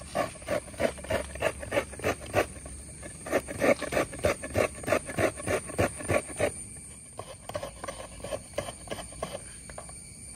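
Hands scraping and knocking something against a steel plate: a quick run of short strokes, about three a second, growing fainter and sparser after about six seconds.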